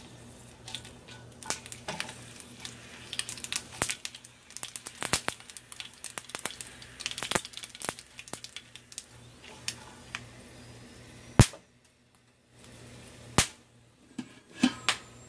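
Mustard seeds popping and spluttering in hot coconut oil in a frying pan: many sharp, irregular pops, with one much louder crack about eleven seconds in.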